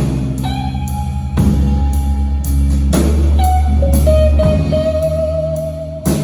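A blues band playing: electric guitars over bass guitar and drum kit. From about the middle, a lead guitar holds one long wavering note over the band.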